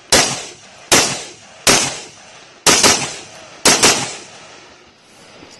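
AR-15-style semi-automatic rifle fired seven times: three single shots about a second apart, then two quick pairs. Each shot trails off in a fading echo.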